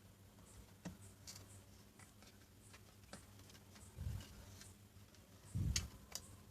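Faint steady low mains hum from the speaker of an LA4440 amplifier board, the earth noise being worked on, with scattered small clicks and two short low thumps, about four seconds in and again near the end, from handling the board and its wiring.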